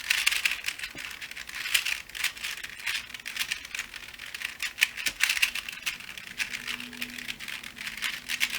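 Plastic void cube, a hollow-centre 3x3 twisty puzzle, being twisted quickly to scramble it: a dense, irregular run of clicks and rattles as the layers turn.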